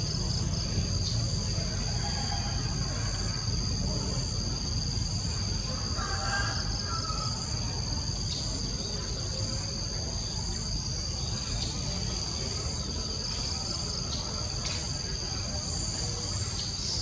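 Steady, high-pitched chorus of insects droning without a break, over a low background rumble.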